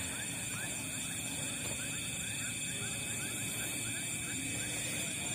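A night chorus of insects shrilling steadily in several high tones, with faint quick chirps repeating through the first second or two.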